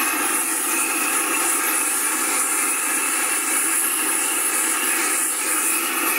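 Hand-held propane torch blasting its flame into charcoal logs to light them, a loud steady hiss that does not let up.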